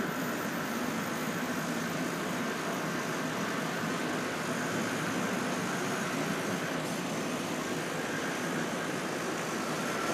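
HO scale Märklin model trains running on three-rail track, a steady rolling hum of metal wheels and small electric motors as two trains pass each other.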